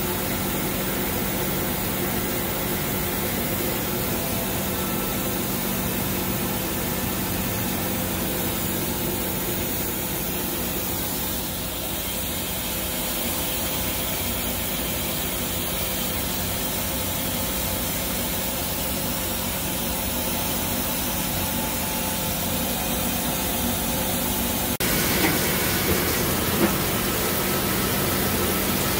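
Tsugami SS20 Swiss-type CNC lathe running with a steady mechanical hum. Near the end the coolant comes on with a sudden rise to a hissing, splashing spray over the tooling, with a few light clicks.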